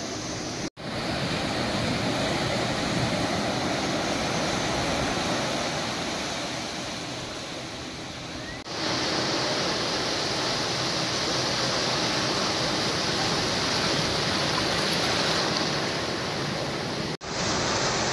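Sea surf washing onto a sandy beach, a steady rushing noise. It cuts out sharply twice, about a second in and near the end, and changes tone about halfway through.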